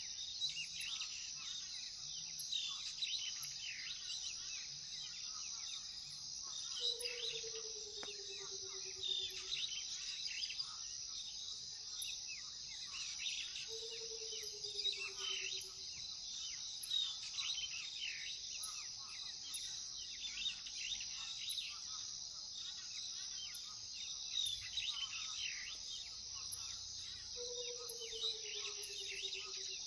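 Night chorus of crickets trilling steadily, with many short birdlike chirps. Three times a low, pure call slides slowly down in pitch, each lasting a couple of seconds.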